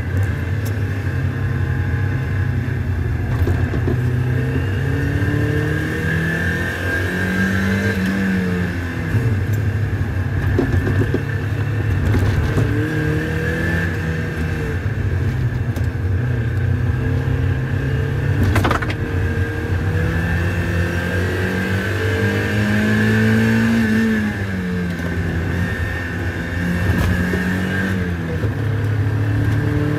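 Mazda MX-5 Miata (NB) inline-four engine, heard from inside the cabin while driven hard on a race track, its revs rising and falling through gear changes and corners. A single sharp click about two-thirds through.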